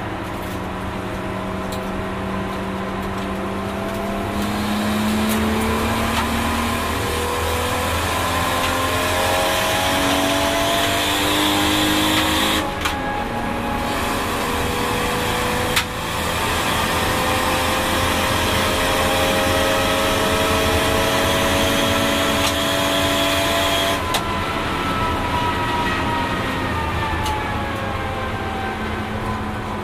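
Single-turbo RB26DETT twin-cam straight-six of a Nissan Skyline R32 GT-R, heard from inside the cabin, running on low boost. It pulls hard, rising in revs through the gears, with quick gear changes about 13 and 16 seconds in. About 24 seconds in the driver lifts off and the revs fall away.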